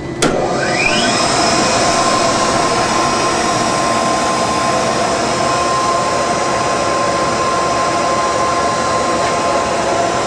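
Lindberg gas-fired aluminium melting furnace starting up: a click, then a whine rising in pitch as the blower comes up to speed within about a second, then a steady loud roar with a constant hum.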